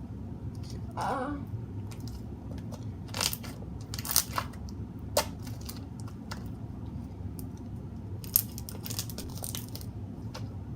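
Homemade glossy slime being squished and stretched by hand, giving scattered sticky pops and clicks, with a cluster of them near the end.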